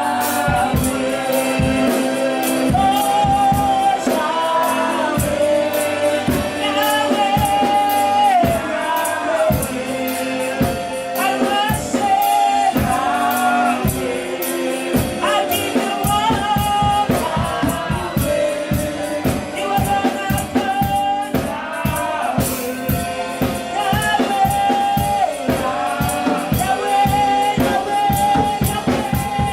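Gospel worship music: voices singing held, sliding melody lines over a fast, even percussion beat.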